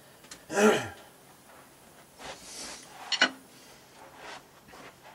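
A man's voice gives a short murmur falling in pitch about half a second in, followed by a few faint clicks. No drumming.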